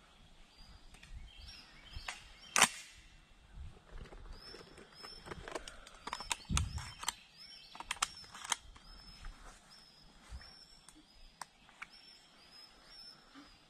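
A bird's short, high calls repeating about twice a second, with scattered small clicks. A single sharp crack about two and a half seconds in is the loudest sound, and a brief low thump comes near the middle.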